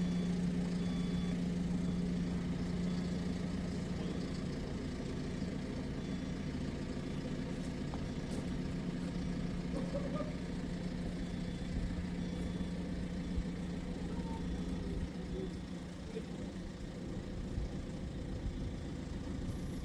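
A vehicle engine running steadily at idle, a low even hum, with a faint repeating beep in the first couple of seconds.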